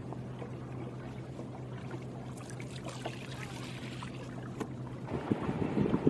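Water lapping and trickling around a small wooden boat as it is poled across calm water, over a steady low hum. About five seconds in, wind starts buffeting the microphone in louder gusts.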